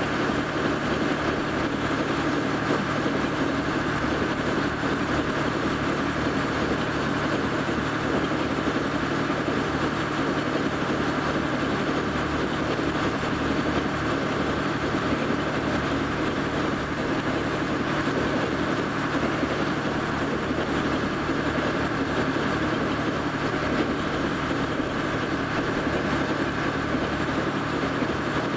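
A boat engine running steadily: a constant low hum under an even rushing noise, with no change in speed.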